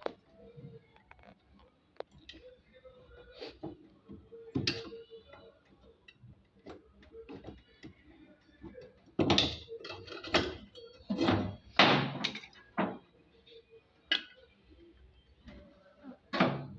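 Irregular clicks and knocks from hand work on a Samsung top-load washing machine as its drive belt is taken off, with a run of louder clunks and rattles past the middle and one more near the end.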